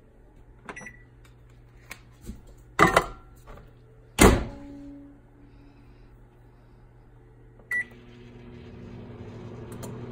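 Microwave oven being loaded and started: two loud clunks about three and four seconds in as dishes go in and the door is shut, a short keypad beep near eight seconds, then the oven starts running with a steady hum for a 30-second heating.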